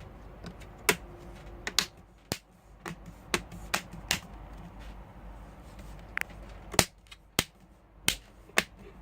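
Plastic screen bezel of an HP Envy 15 laptop being pressed back onto the lid, its clips snapping into place: about a dozen sharp clicks at irregular intervals.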